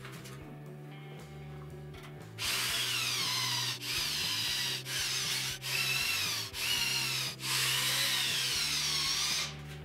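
Cordless drill-driver working into a pine frame joint, starting about two and a half seconds in and running in several bursts with brief stops, its motor pitch sagging and rising under load.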